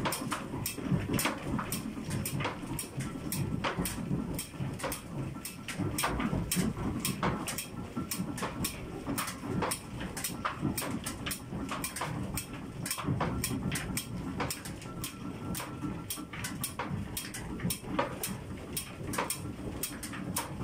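Old mill machinery running: a low rumble with continual irregular clattering and knocking, and a faint thin whine that comes and goes.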